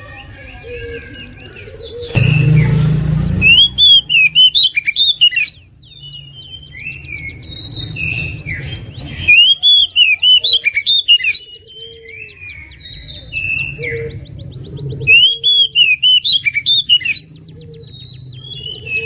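Oriental magpie-robin singing vigorously: loud, rapid whistled phrases in three bursts, with fast rattling trills between them. A harsh noisy burst comes about two seconds in.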